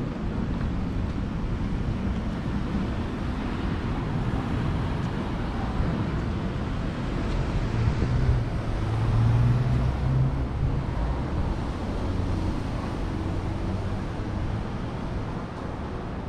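City street traffic noise: a steady hum of road traffic, swelling into a louder low rumble for a couple of seconds about eight seconds in as a vehicle passes.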